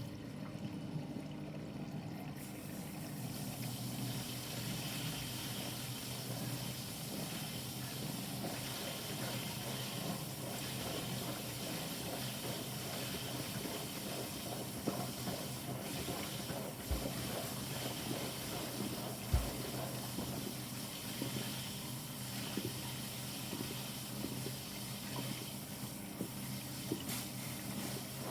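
Bosch washing machine running on a quick wash programme: water flowing and sloshing in the machine over a steady low hum, with a few small knocks.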